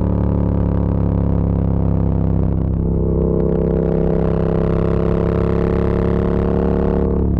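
Yamaha MT-07 parallel-twin engine and exhaust running with a steady drone, its note rising slowly from about halfway through, with a brief break near the end.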